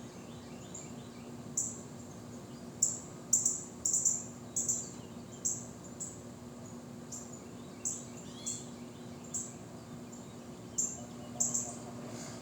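Short, high-pitched chirps repeated at irregular intervals, thickest in the first half, over a steady low hum.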